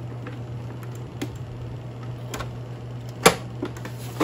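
A few sharp plastic clicks and knocks from the Epson L5190 printer's casing and lifted top unit being handled, the loudest about three seconds in, over a steady low hum.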